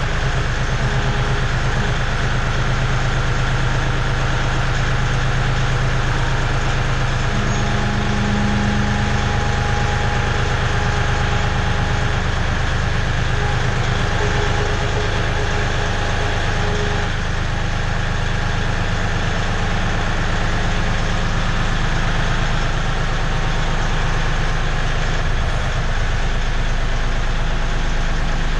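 Compact tractor engine running steadily inside a steel shipping container, its front loader being raised by the hydraulics, with brief extra whining tones about a quarter of the way in and again around the middle.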